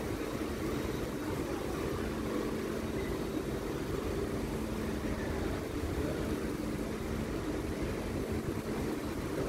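Heavy vehicle running steadily: a low rumble under a steady hum.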